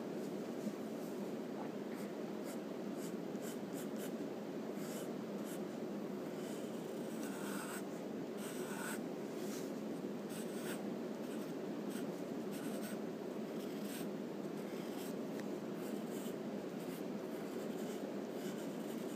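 Wooden graphite pencil scratching on paper in many short sketching strokes, over a steady background hiss.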